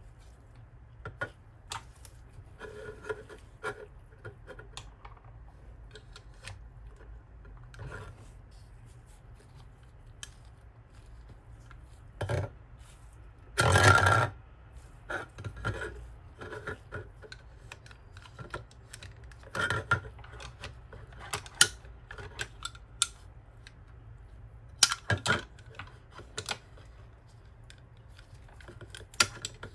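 A plastic Happy Meal toy handled with gloved hands on a table: scattered clicks, taps and rubbing of plastic, the loudest a rasping noise of under a second about fourteen seconds in.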